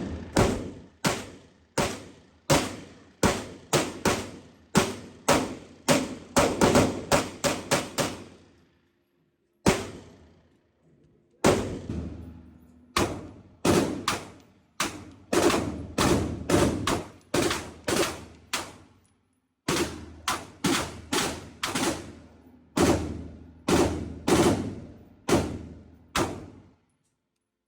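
Gunfire at an indoor range: long strings of single shots, about two a second, each with an echoing tail. The shooting breaks off for a couple of seconds about a third of the way through, with only two lone shots in the gap, then resumes.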